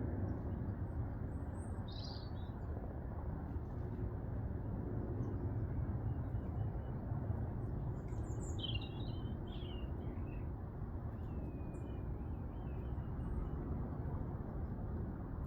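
Wild garden birds chirping a few times: once about two seconds in, a cluster of high chirps around eight to ten seconds in, and a fainter call later. Underneath is a steady low rumble of background noise.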